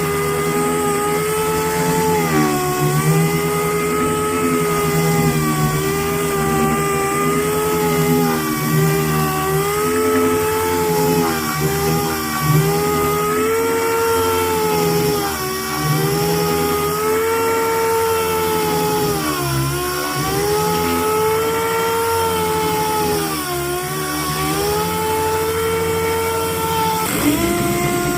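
Power sander running on car bodywork, its motor pitch dipping and recovering every few seconds as it is bogged against the panel.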